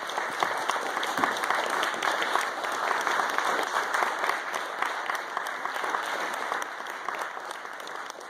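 Audience applauding: dense, steady clapping from a roomful of people that slowly dies down over the last couple of seconds.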